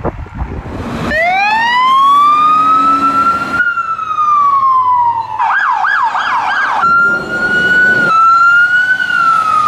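Electronic emergency-vehicle sirens heard in short spliced clips. A wail winds up about a second in and then slowly falls, followed by a brief burst of fast yelp and then steady and slowly rising wail tones. Each clip cuts off abruptly into the next.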